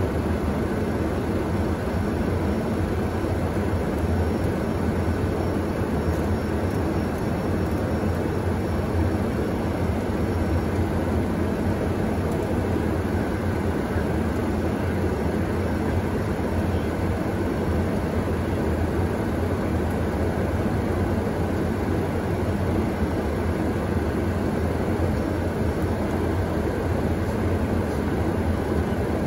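Steady cockpit noise of a small airplane in its climb after takeoff: the even rush of engines and airflow, with a low hum and a faint steady whine.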